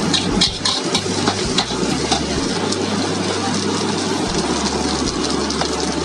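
Nasi goreng frying in a large steel wok: a steady loud hiss of rice and egg sizzling over the flame, with a metal spatula scraping and clacking against the wok in the first couple of seconds, then fewer strokes as the spatula rests.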